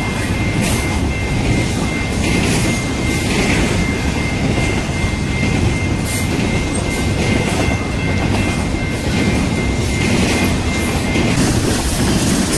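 BNSF double-stack intermodal freight train passing at about 45 mph: a loud, steady rumble and rattle of the cars rolling over the rails. A steady high ringing from the grade-crossing signal stops about 11 seconds in.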